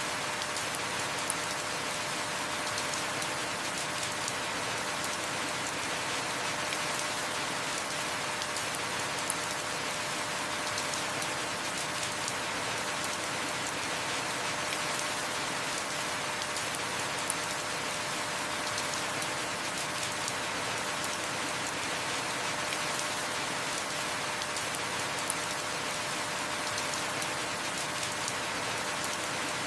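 Heavy rain falling steadily, an even dense hiss with no let-up. A faint tick stands out about every eight seconds.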